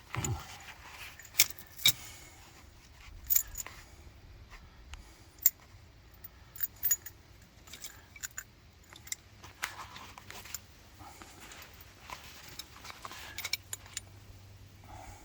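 Irregular metallic clinks and clicks of hand tools and small steel hardware being handled while fitting a circulator pump's flanges and bolts, with a few sharper clanks among lighter ticks.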